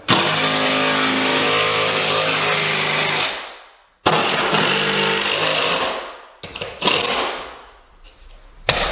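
Cordless power driver running lag screws through a wooden mounting board into the wall studs: a long run of about three seconds that winds down, a second run of about two seconds, then a brief third burst.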